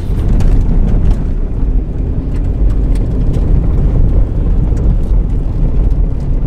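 Car cabin noise while driving on an unsealed red dirt road: a steady low rumble of tyres and engine, with scattered light ticks.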